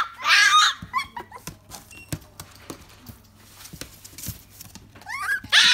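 Shiba Inu puppy whining: a high-pitched whine at the very start, then a stretch of scattered clicks and knocks, and a fresh run of short whines gliding up and down near the end.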